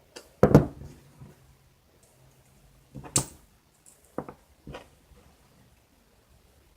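Small hand-tool and plastic-part clicks and knocks while prying at a small metal bushing in an RC truck's hub carrier, trying to pop it out: a louder knock about half a second in, a sharp click about three seconds in, and two lighter clicks a second or so later.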